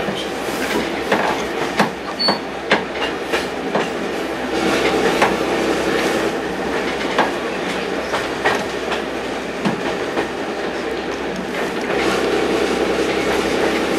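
Running noise inside a vintage railway carriage under way: a steady rumble of wheels on track with frequent irregular clicks and knocks.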